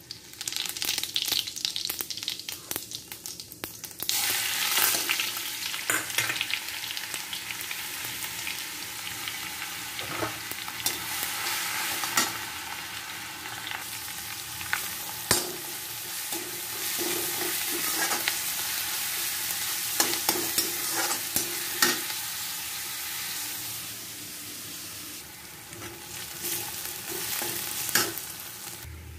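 Hot oil sizzling in an iron kadhai as ingredients fry, starting as they drop into the oil and louder from about four seconds in once onion and green chilli are in. A metal slotted spatula stirs and scrapes the pan, with sharp taps against the iron every few seconds.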